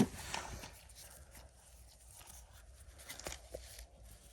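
Faint rustling with a few light clicks and taps as small items and boxes are handled, the clearest clicks a little after three seconds in.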